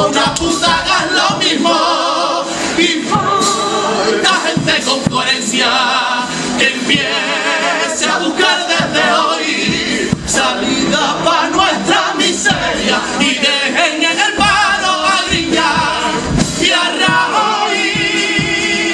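Carnival comparsa's male choir singing the closing lines of a pasodoble together, loud and full, ending on a long held chord near the end.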